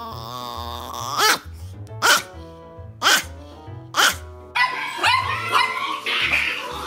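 A small chihuahua vocalising: a rising, drawn-out call, then four loud sharp yelping barks about a second apart, over background music with a steady bass beat. Near the end the barks give way to a busier jumble of other sounds.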